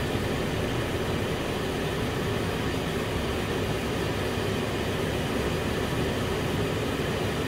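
Steady low rushing noise, even throughout, with no distinct knocks or clicks.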